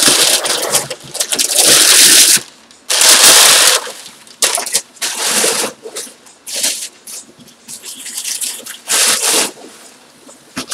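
Crumpled brown kraft packing paper crackling and rustling loudly as it is pulled out of a cardboard shipping box and handled, in irregular bursts, the longest two in the first four seconds and shorter ones after.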